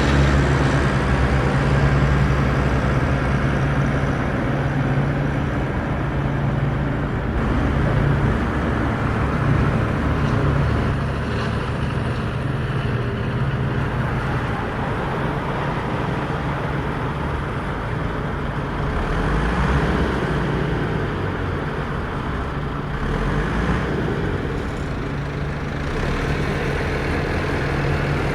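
Off-road vehicle engine running steadily with a constant low hum, mixed with tyre and road noise.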